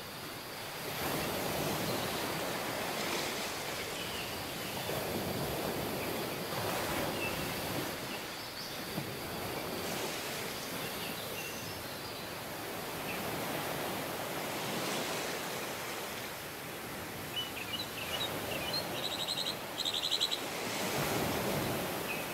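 Ocean surf washing ashore, swelling and easing every few seconds, with birds chirping a few times toward the end.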